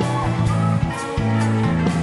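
Rock music: electric guitar with bending notes over held bass notes and a steady drum beat.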